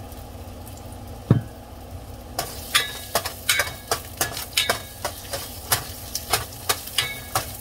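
A metal spoon clinking and scraping against a stainless steel pot, about two to three ringing strikes a second, as ginger slices sizzle in hot oil while being sautéed. A single knock comes about a second in, and the sizzle starts about two and a half seconds in.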